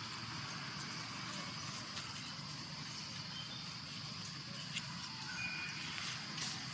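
Tropical forest ambience: a steady high-pitched insect drone over a low background rumble, with a few short bird chirps in the second half.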